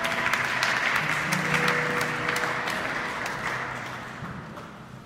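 Audience applauding, strongest in the first couple of seconds and then dying away.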